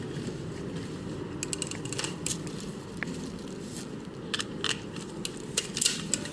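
Handling and movement noise over a steady low rumble, with scattered sharp clicks and cracks, several in quick succession about two seconds in and again from just past the middle.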